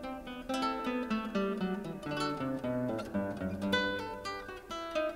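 Background music: an acoustic guitar playing quick plucked and strummed notes that ring and decay.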